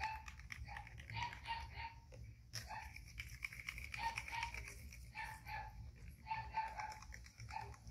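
Baby macaques squeaking briefly again and again amid scattered clicks and rustles as they tumble in a fabric hammock, over a low steady rumble.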